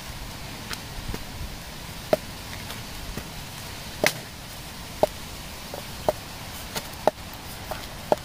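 Wooden rolling pin knocking against a round chapati board while dough is rolled out: sharp clicks, each with a short ring, about once a second.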